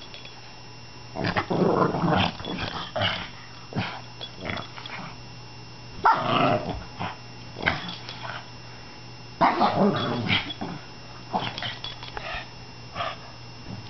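Pug growling and barking in play, in several short bursts.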